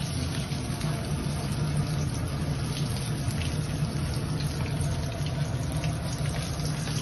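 Vegetable kofta balls deep-frying in hot oil in a frying pan: a steady sizzle full of fine crackles and pops, over a steady low hum.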